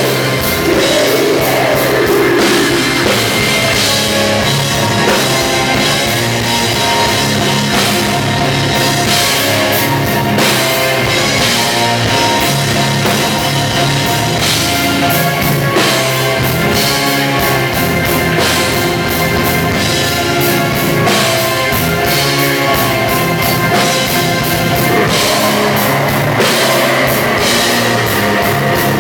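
Live symphonic death/black metal played by a full band: pounding drum kit, distorted guitars and sustained keyboard chords, loud and unbroken.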